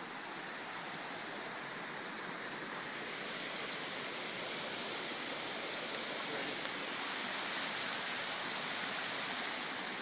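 Small cascading mountain creek rushing over rocks, a steady water noise that grows a little louder about seven seconds in.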